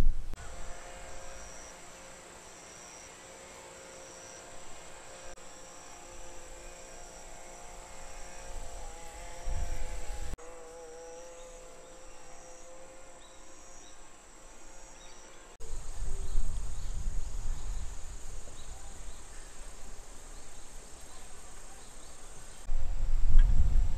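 Insects chirping in a steady, evenly repeating high-pitched pattern. In the first half a low, wavering hum runs underneath, and in the later part wind gusts rumble on the microphone.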